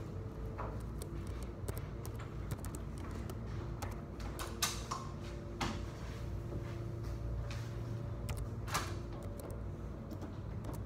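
Classroom room tone while students copy notes: a steady low hum with scattered small clicks and a few sharper knocks, the loudest a little under halfway through.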